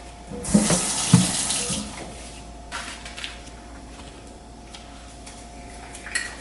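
Liquid spraying out with a dense hiss for about two seconds, then stopping abruptly, with a couple of light knocks near the start.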